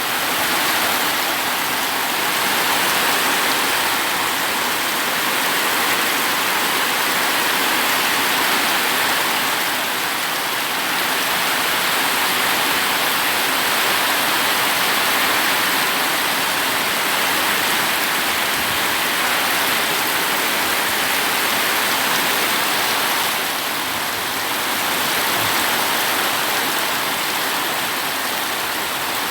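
A steady downpour of heavy rain, an even hiss of falling water that holds throughout.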